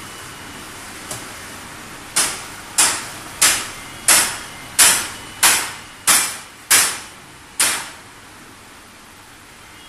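Sanitary napkin making machine running, with nine sharp strokes of its pressing mechanism, about one and a half a second, over a steady background running noise; a faint click comes about a second in, and the strokes stop a couple of seconds before the end.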